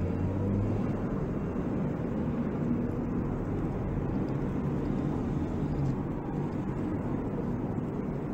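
A vehicle engine running steadily: a low rumble with a few humming tones over it.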